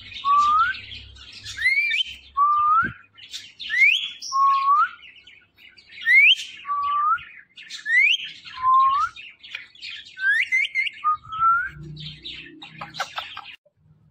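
Ringneck parrot whistling the same two-note call over and over, about once every two seconds: a high rising whistle, then a shorter, lower rising note. Near the end the notes come quicker and break into some chattering.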